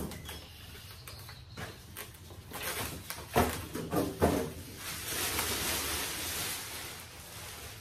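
Clear plastic wrapping crinkling and rustling as it is pulled up off a steel rolling tool cabinet, with two brief louder bumps about three and four seconds in and the crinkling strongest a little after the middle.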